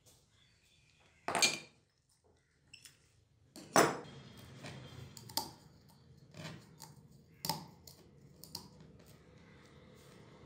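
Small metal camera parts and a rusty metal housing tube being handled: a series of clinks and knocks, the loudest about a second and a half in and again near four seconds in, followed by scraping and rubbing inside the tube with a few more clicks.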